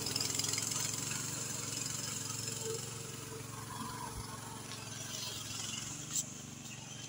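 Walk-behind tractor engine of a homemade trike running steadily, growing fainter.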